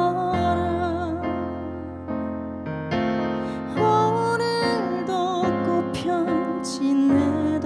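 A woman singing a slow trot ballad in Korean, her held notes wavering with vibrato, over chords she plays on an electric piano.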